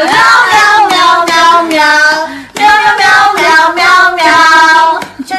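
A high voice singing a tune made entirely of repeated "meow" syllables, one held note after another, with a short break about halfway through.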